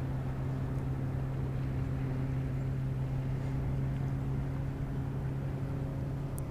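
Steady low electric hum of a boat's bow-mounted trolling motor running, even in pitch and level throughout.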